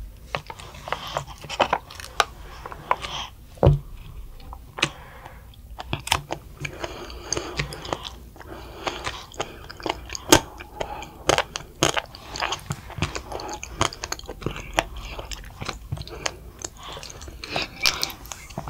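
Close-miked mouth sounds of children chewing bouncy konjac jelly pearls from bubble tea: a steady run of short clicks and smacks.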